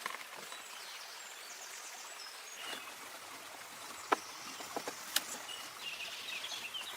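Jungle ambience by a waterfall: a steady hiss of rushing water with birds chirping, broken by a few sharp clicks about four and five seconds in.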